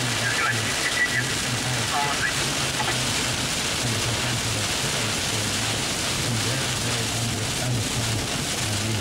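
Steady rain falling on a vehicle, heard from inside, with a low, uneven hum underneath. Faint voices come through in the first three seconds.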